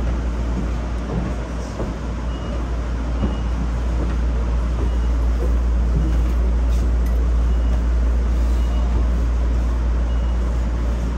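Shonan Monorail 5000 series suspended monorail train running at speed: a steady low rumble of its rubber-tyred bogies rolling inside the track girder, heard from the front car.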